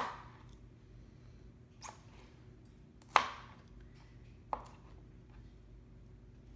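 Chef's knife chopping down through green onions onto a cutting board, trimming off the ends: four separate sharp chops at uneven intervals, the third the loudest.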